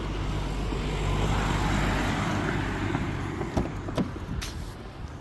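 Motor vehicle noise: a steady, even rush that swells about a second in and fades, with a few short clicks near the end.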